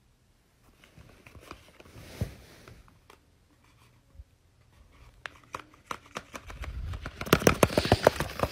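Handling noise of a buckled strap glove and a paper dragon puppet: scattered small clicks and rustles, with one sharper click about two seconds in, building into a rapid crackle of clicks near the end.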